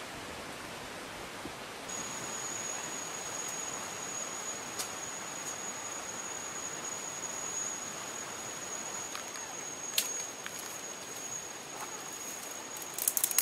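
Forest ambience with a steady hiss, and from about two seconds in a continuous high-pitched insect drone on one unchanging note. Near the end comes a quick run of crackles from dry twigs being handled and snapped.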